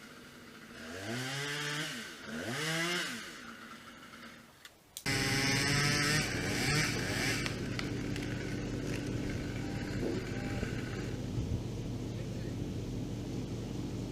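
Two short sounds that rise and fall in pitch, then, about five seconds in, a chainsaw's engine starts running steadily and keeps going.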